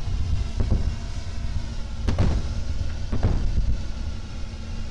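Steady low rumble, like a running vehicle, with a faint hum and three short thumps, the strongest about two seconds in.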